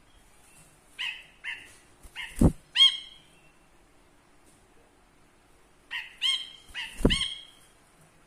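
A caged cinereous bulbul (brinji kelabu) calling in two short phrases about five seconds apart. Each phrase is a few arched notes that build to the loudest at its end.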